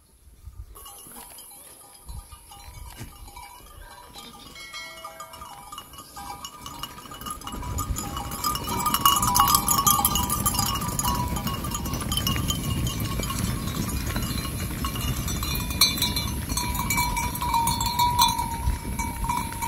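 A flock of sheep and goats on the move: livestock bells ringing and bleating over the rush of many hooves on dry ground. It is faint at first and swells loud about seven or eight seconds in as the flock arrives.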